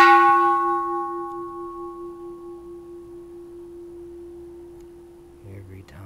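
Bronze Japanese Buddhist temple bell struck once with the chamfered corner of a wooden mallet, then ringing out. The higher overtones die away within about two seconds while a low hum carries on for about five seconds.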